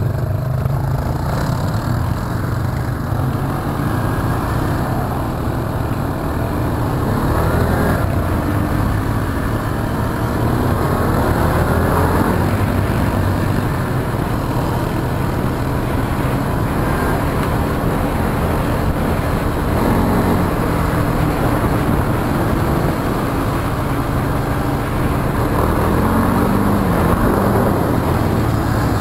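ATV engine running under way on a dirt road, its pitch rising and falling several times as the throttle is worked.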